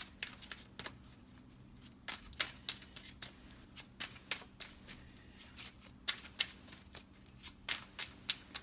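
A tarot deck being shuffled by hand: quick card flicks and taps coming in short flurries with brief pauses between them.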